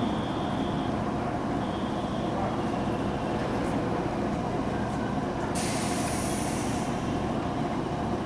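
A stationary electric commuter train idles at a platform with a steady hum from its onboard equipment. About five and a half seconds in, a sharp hiss of released compressed air lasts just over a second.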